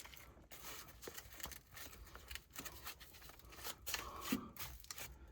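Faint, irregular rustling and tearing of foam pipe insulation being handled on water heater piping, as the deteriorated insulation is replaced.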